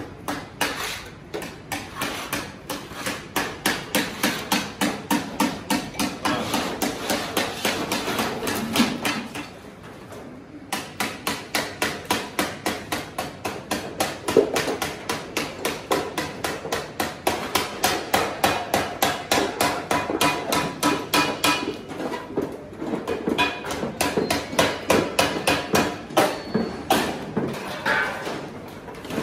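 Rapid, steady hammering on metal, about three to four blows a second, with a pause of about a second near the middle.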